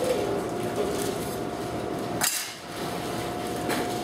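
A few sharp knocks and clacks of dishes or utensils against a work surface, the loudest about two seconds in, over a steady hum.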